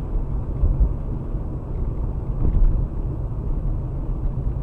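Steady low rumble of a car driving, engine and tyre noise picked up by a dashcam inside the car.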